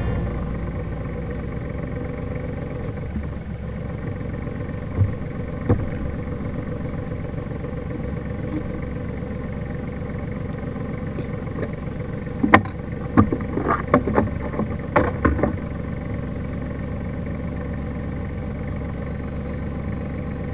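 A sailboat's engine idling steadily at the dock, with several sharp knocks clustered a little past the middle.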